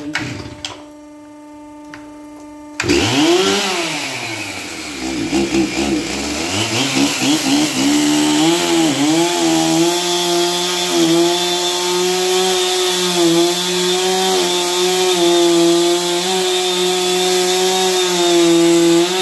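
A chainsaw starts suddenly about three seconds in and revs up and down. From about eight seconds it holds at high, steady revs with small dips under load as it cuts the uneven end off a log. A few faint clicks come before it starts.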